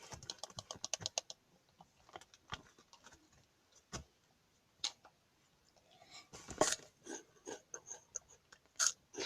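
A quick run of small sharp clicks in the first second, then scattered single clicks and taps, growing busier with short high squeaks near the end.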